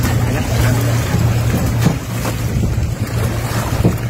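A flat-bottomed boat's engine idling with a steady low drone. A few knocks come as people step about in the boat.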